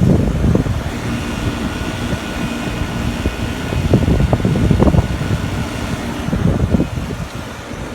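Trane rooftop package air-conditioning unit running with a steady mechanical hum, over low, uneven wind buffeting on the microphone.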